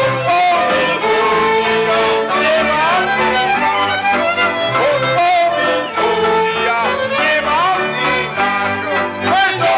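Slovak folk band music led by fiddles, a lively tune with sliding melody lines.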